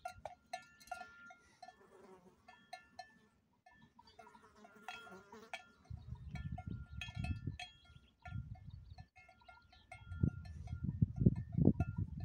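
Bells on grazing cows clinking irregularly as the cows move and feed. Bursts of low rumble come in about six seconds in and again near the end.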